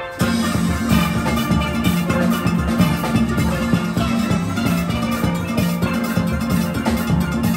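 A school steel band playing live: a section of steel pans strikes out a rhythmic tune, with a drum kit underneath. The full band comes in strongly just after the start.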